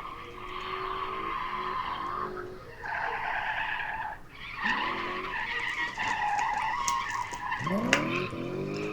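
V8-powered BMW E28 drifting, its tyres squealing through the slide with a few short breaks, and the engine revving up twice, about halfway through and again near the end.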